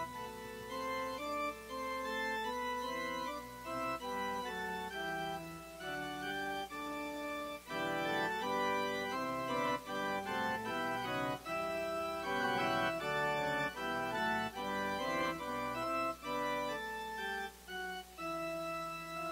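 Organ playing sustained chords that move note by note, growing busier and a little louder about eight seconds in.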